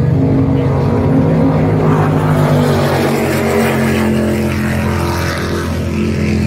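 Offshore racing powerboat engines running at speed: a loud, steady drone of several tones, its pitch drifting slightly in the middle.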